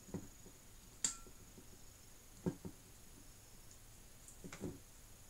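Pliers working a wire fastening on a vacuum flask's lid lock, making a few light, uneven clicks and taps. The sharpest click comes just after a second in, and a quick double tap follows about two and a half seconds in.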